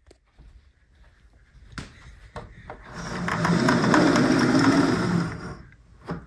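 Horizontal window blind being pulled up, its slats clattering together for about two and a half seconds starting about three seconds in, after a few faint knocks.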